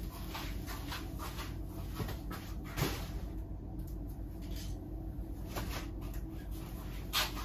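A few scattered light knocks and clatters of someone searching through studio supplies for a paintbrush, the clearest about three seconds in, over a steady low hum.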